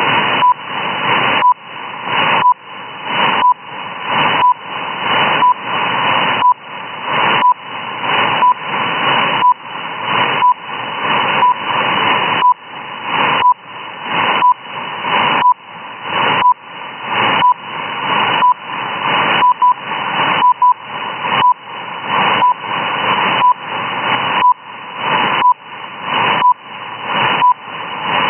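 Shortwave reception of the RWM time-signal station in upper sideband: steady static hiss with a short 1 kHz beep once a second, the station's second pulses. A few pulses come doubled about two-thirds of the way through.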